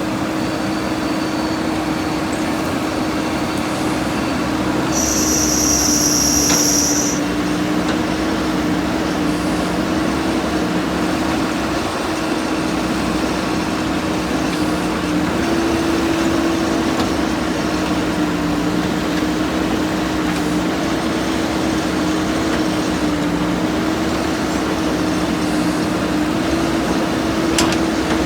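JCB 3DX backhoe loader's diesel engine running steadily at work, a continuous hum with a slightly wavering pitch. A brief high-pitched whine cuts in about five seconds in and stops two seconds later.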